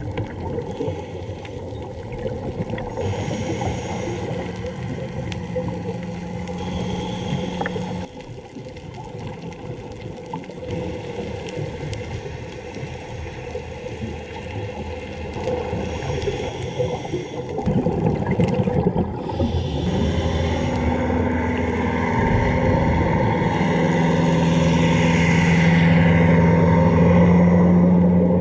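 Low steady engine hum heard underwater, growing louder over the last third, over the wash of the water.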